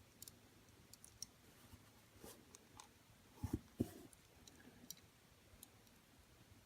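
Faint scattered clicks and taps of a small diecast toy car being handled while its little tires are pried off the wheels, with two slightly louder knocks about three and a half seconds in.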